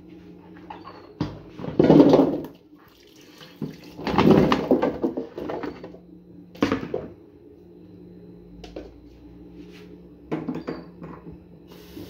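Wet pumpkin cubes tumbling out of a plastic colander into an aluminium pot, in two loud rushes about two and four seconds in, followed by a few scattered knocks.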